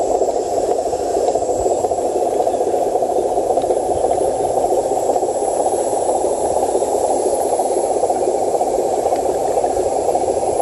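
Steady whirring noise of small RC trucks' electric motors and gearboxes driving slowly, even and unchanging throughout.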